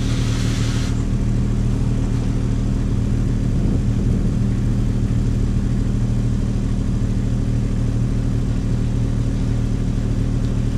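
Kubota U27-4 mini excavator's diesel engine running steadily under work load as the boom and bucket are worked, with a brief hiss near the start.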